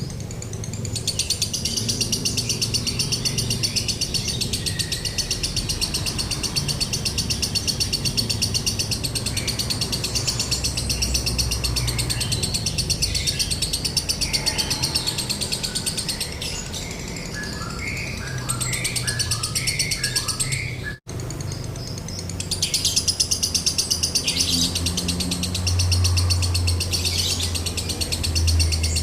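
Lovebird giving the long 'konslet' ngekek: a rapid, dry, high-pitched rattling chatter in long unbroken runs, cut off briefly about two-thirds of the way through before starting again. A few lower, separate chirps come in just before the break.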